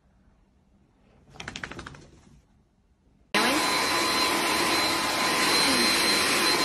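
A pet-grooming vacuum brush starts abruptly about halfway through and runs loud and steady, with a constant whine. Before it, in a quiet stretch, there is a brief run of quick scratchy clicks.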